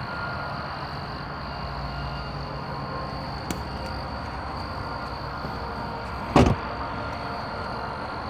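Night insects trilling in one continuous high thin tone over a steady low hum, with a single sharp knock about six seconds in, the loudest sound here.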